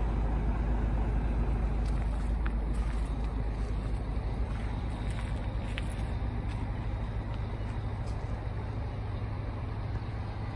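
Scania coach's diesel engine idling: a steady low rumble.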